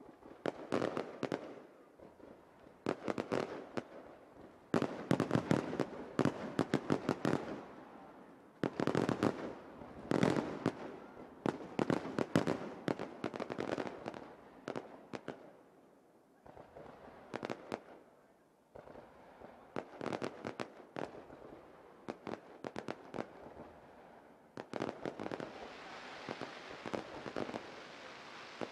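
Aerial firework shells bursting in a finale barrage: volleys of rapid sharp bangs and pops, with brief lulls between salvos.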